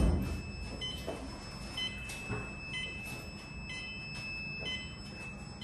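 A thump right at the start, then short high electronic beeps about once a second over a steady high whine, the kind of beeping given by breaker test equipment or a switchgear alarm.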